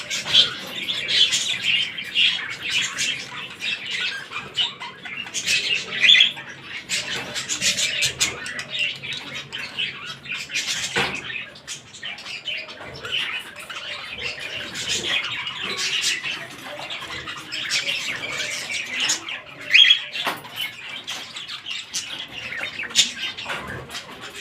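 Pet cockatiels chirping and calling continuously, many short calls overlapping, with a single sharp knock about eleven seconds in.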